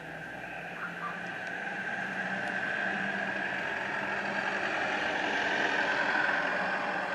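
A motor vehicle going by, its sound growing louder over several seconds and easing slightly near the end.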